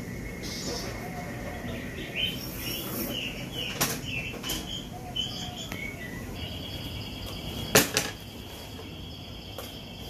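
Outdoor garden ambience with birds chirping in short rising and falling notes, and a steady high note in the second half. Two sharp clicks late on are the loudest sounds.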